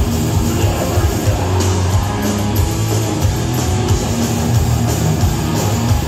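Thrash metal band playing: distorted electric guitars over drums with frequent cymbal hits.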